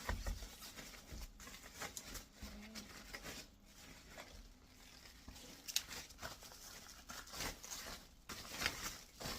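Hands handling the vacuum's parts and packaging: irregular rustling and crinkling with scattered light clicks and knocks.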